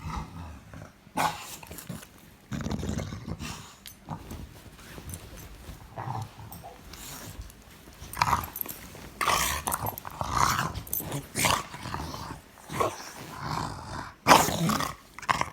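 A dog grumbling and growling in many short, irregular bursts, loudest near the end.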